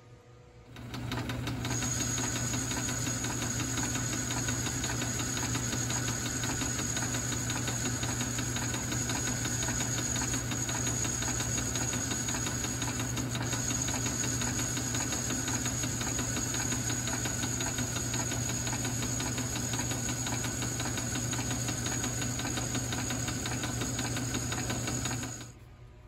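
South Bend metal lathe starting up about a second in and running steadily while turning an aluminium part, with a steady high whine over the motor and gear noise. It shuts off near the end.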